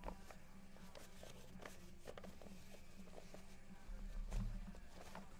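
Quiet handling of trading cards on a table: scattered soft clicks and rustles, with a low bump about four seconds in, over a steady low hum.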